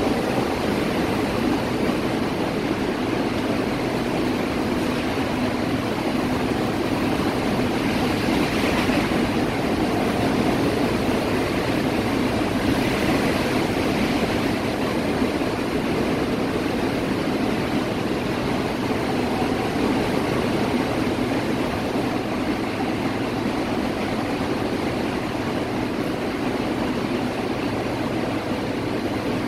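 Hurricane wind and heavy rain making a loud, steady rushing noise, swelling briefly a couple of times in gusts.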